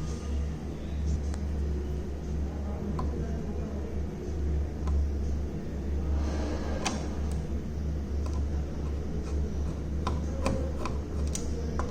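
A steady low hum with scattered light clicks and taps, a few near the middle and a cluster near the end.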